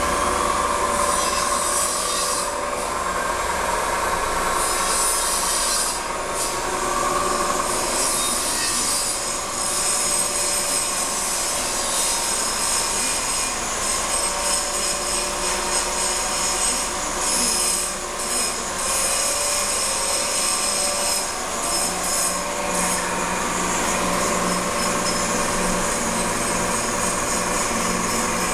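Steady machine-shop machinery noise: a continuous mechanical hum with high, shrill squealing tones on top.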